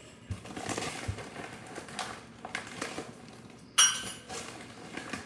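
Kitchen utensils and dishes clinking and knocking, with a sharp ringing metallic clink about four seconds in.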